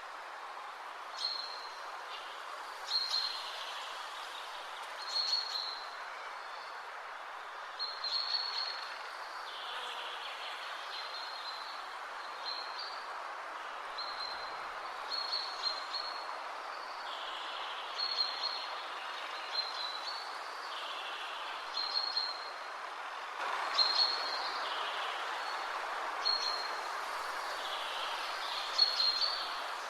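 Birds giving short, high chirps every second or two over a steady background rush. The rush gets louder about two-thirds of the way through.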